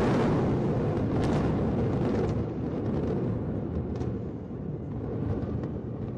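Rumble of high-rise concrete twin towers collapsing in an explosive demolition: a long, dense roar, loudest at the start and slowly fading, with a few sharp cracks about a second in and again near four seconds.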